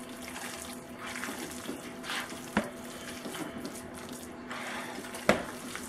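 Hands squishing and folding a wet mixture of chicken, cheese, béchamel sauce and lasagna noodle strips in a bowl, with two short sharp knocks, one about halfway and one near the end.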